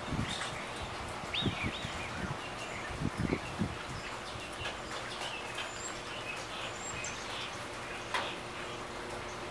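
Outdoor ambience of steady background noise with a few short bird chirps, a handful of low thumps in the first few seconds, and a faint steady hum underneath.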